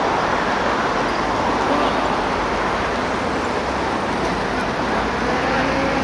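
Steady outdoor background noise, a constant rumbling hiss, with faint distant voices.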